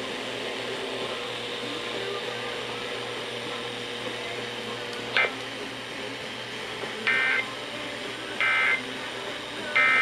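FM radio speaker playing the Emergency Alert System end-of-message signal: three short identical bursts of warbling data tones about a second and a half apart, closing the Amber Alert. Before them the radio gives a steady hiss, with a brief click about five seconds in.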